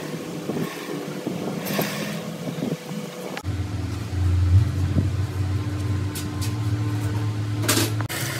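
Light scattered handling sounds, then from about a third of the way in a steady low machine hum, like a motor running in the workshop, with a brief rushing sound near the end.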